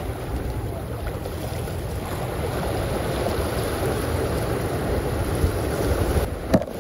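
Steady wind noise buffeting the microphone over small waves washing in on the shallow shoreline.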